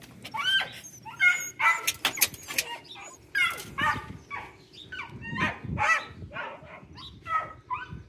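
Dog whining and yipping in short, bending cries, about two a second.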